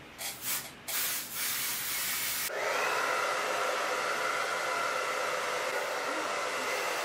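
Aerosol hair spray hissing in a couple of short bursts, then one longer spray of about a second and a half. About two and a half seconds in, a hand-held hair dryer switches on and runs steadily, a rushing blow with a steady whine.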